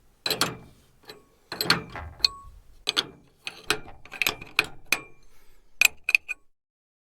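A run of sharp metallic clanks and clicks, each with a brief ringing tone, coming irregularly a few times a second and stopping about six and a half seconds in.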